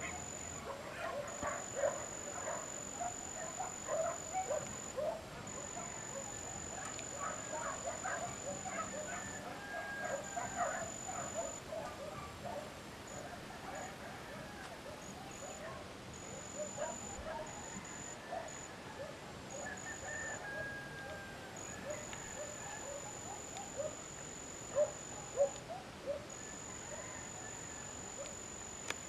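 Outdoor ambience of many short, distant animal calls, scattered through and louder twice near the end, over a steady high-pitched whine that stops and starts.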